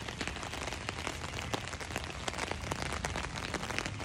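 Rain pattering on an umbrella canopy overhead: a steady hiss dotted with many separate sharp drop hits.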